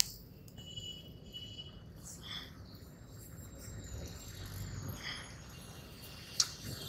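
Quiet outdoor background: a low rumble with a few faint, thin high-pitched chirps and tones, and one short click near the end.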